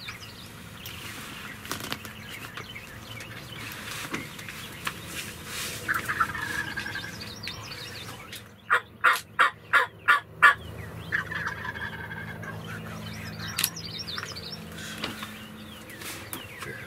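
Wild turkey gobblers gobbling, two rattling gobbles about six and eleven seconds in. Between them, about two-thirds of the way through, comes a loud run of about seven evenly spaced, raspy yelp-like calls, the loudest sound here.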